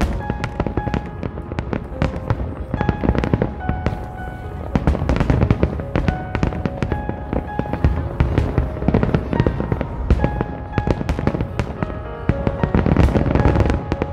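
Aerial firework shells bursting in dense, continuous volleys of sharp bangs, several a second, with music playing alongside. The barrage is heaviest near the end.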